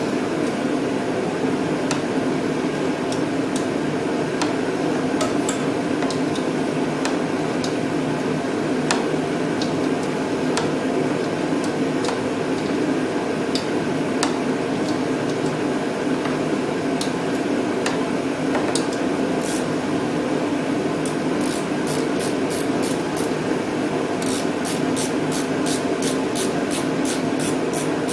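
Hand ratchet wrench turning the starter's back 3/8 bolts: scattered clicks, then a regular run of ratchet clicks about two or three a second in the last third, over a steady hum.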